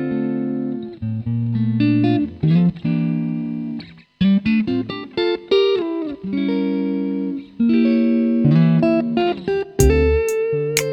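Neo-soul instrumental music: a guitar plays sustained chords and short melodic phrases, with gaps between phrases. Percussion and a deep bass come in near the end.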